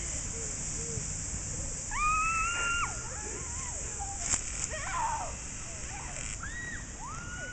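Children's high-pitched yells while sledding, one long held yell about two seconds in and another near the end, with shorter calls between, over a steady rushing noise. A single sharp click about four seconds in.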